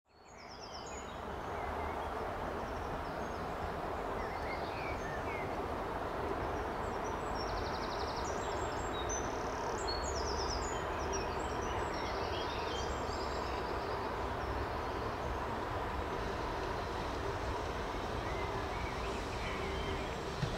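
Three-car Class 108 diesel multiple unit's engines running steadily as it approaches: a low drone with a held hum. Songbirds chirp and trill over it through roughly the first two-thirds. The sound fades in over the first couple of seconds.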